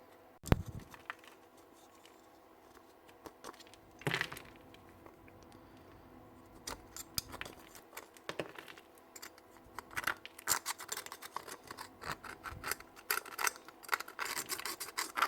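Scattered metallic clicks, scrapes and light knocks from hand tools removing a bearing from the gear-train parts of a Bosch GRW 11 E mixing drill, with quicker, denser clicking in the last few seconds.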